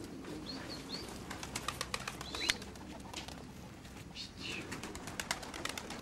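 Pigeons cooing faintly, with several short, high bird chirps and two runs of quick light clicks and taps.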